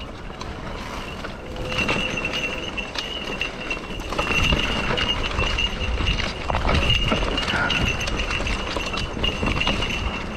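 Mountain bike riding down a dirt forest trail: tyres rumbling over dirt and stones, with the bike clattering and knocking over bumps and a steady high-pitched whine through most of it.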